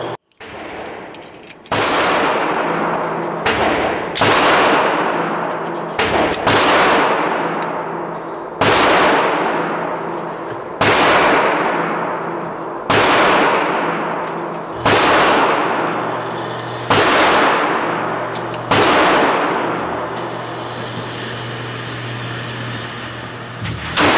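9mm pistol shots, fired one at a time about two seconds apart with a few weaker shots in between, each echoing for a long time in an indoor shooting range. After a longer pause, another shot comes near the end.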